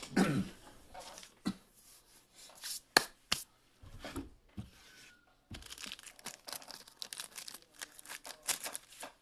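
Off-camera crinkling and tearing handling noise, like packaging being worked by hand, broken by scattered sharp clicks. The loudest click comes about three seconds in, and the crackling grows dense in the second half.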